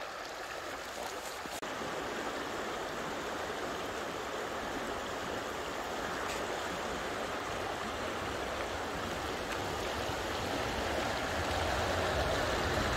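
Steady rushing noise, slowly growing a little louder toward the end.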